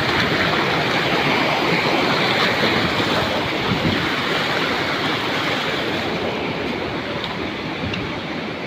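Waterfall: a steady rush of falling water, easing slightly and growing a little duller over the last few seconds.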